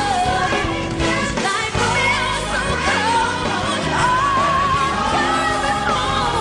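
Live band playing a slow gospel-pop ballad with a singing voice gliding through long held, bending notes.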